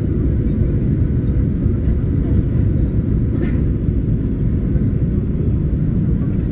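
Steady cabin noise inside a Boeing 737-800 on final approach, seconds before touchdown: its CFM56-7B turbofan engines and the rushing air make an even, loud low rumble with a faint hiss above it.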